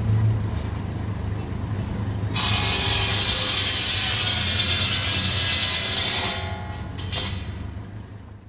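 Belt-driven buzz saw, a large circular blade run off a 1954 Farmall Cub's four-cylinder engine, which hums steadily underneath. From about two seconds in until about six seconds in, the blade cuts through a log with a loud hiss, then the cut eases off.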